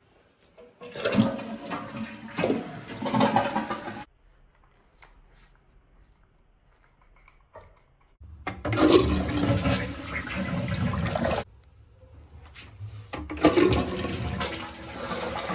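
Toilet flushing, heard as three separate rushes of water, each about three seconds long and cutting off abruptly.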